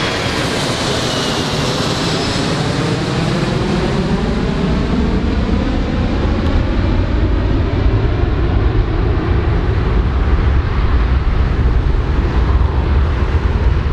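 A large airplane's engines passing by: a high whine that falls in pitch over the first few seconds over a loud rush, then a deep rumble that grows stronger.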